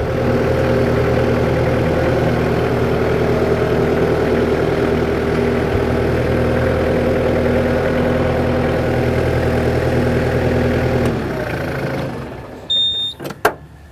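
New Holland Boomer 50 compact tractor's diesel engine running steadily as the tractor creeps forward in low range. About eleven seconds in, the engine winds down and falls away, followed near the end by a short high beep and a couple of sharp clicks.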